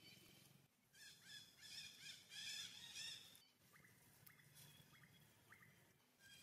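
Faint high-pitched animal calls: a quick run of chirps, then four short rising chirps spaced about half a second apart.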